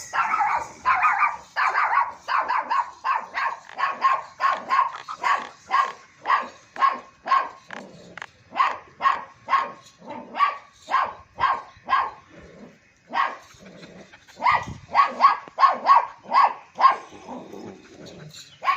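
Long-coated German shepherd barking over and over, about two barks a second, with a brief pause about twelve seconds in before the barking picks up again.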